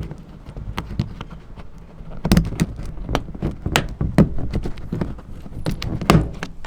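Irregular sharp clicks and knocks of plastic parts being handled and pressed together: a plastic push-pin retaining clip being fitted back into place.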